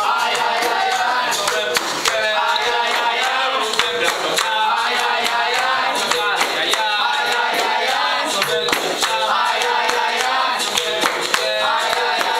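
Capoeira roda music: a group singing together over the jingling and slapping of pandeiros (tambourines), hand clapping and berimbau.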